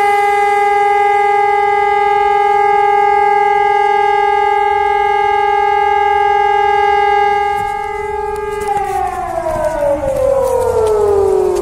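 Fire station alarm siren holding one steady, loud tone for about nine seconds, then its pitch falling away steadily as it winds down.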